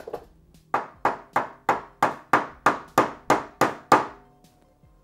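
Hammer tapping a punch to drive the float pivot pin out of a Yamaha TW200 carburetor: a steady run of about a dozen sharp metal taps, about three a second, with a single tap just before them.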